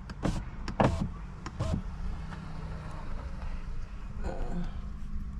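Steady low rumble of a vehicle heard from inside a car, with a few short knocks in the first two seconds.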